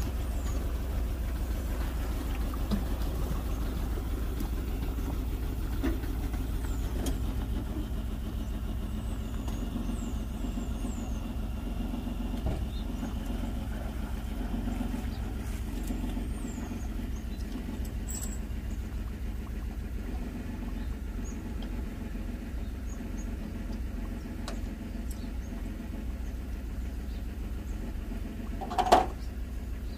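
A ute's engine runs at a low, steady idle while it backs a boat trailer down into the water. A single sharp knock sounds near the end.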